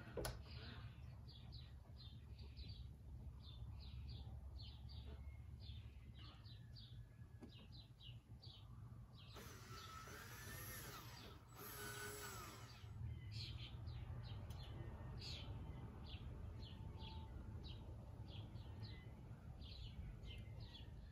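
Faint outdoor background: a small bird chirping over and over, a few short high chirps a second, over a steady low rumble. About ten seconds in comes a brief whirring sound lasting a few seconds that rises and falls in pitch.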